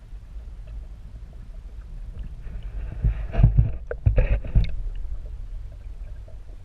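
Muffled underwater rumble picked up through a camera housing. About three to four and a half seconds in come louder sloshing thumps, as a released sturgeon kicks away.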